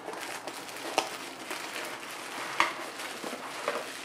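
Replacement projector lamp being handled and unpacked: light rustling of packaging with a few sharp plastic clicks, the loudest about a second in.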